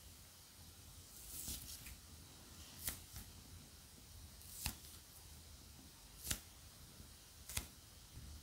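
Butter slime made from fondant and lotion being squeezed and kneaded in the hands: a faint soft crackling about a second and a half in, then four short, sharp little clicks a second or two apart.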